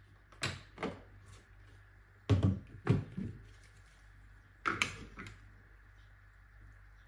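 Knocks and clunks of a SilverCrest blender jug being lifted off its motor base and set down on a wooden table, in three short groups, the loudest a little over two seconds in.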